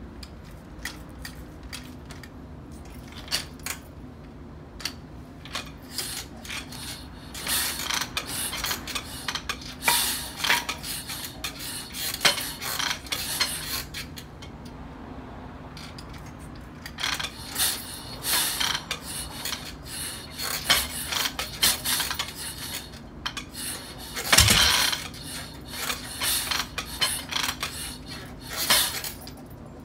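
Harley-Davidson Shovelhead chopper being kick-started without catching: two spells of rapid metallic clanks and rattles from the kick-start mechanism, with one louder thump about twenty-four seconds in.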